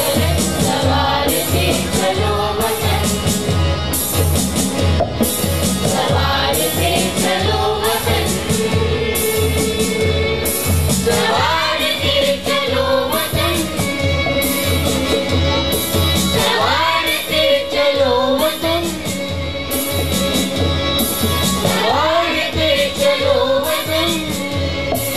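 A children's choir of boys and girls singing together over a live band: hand-played conga drums keeping a steady beat, with guitar and harmonium.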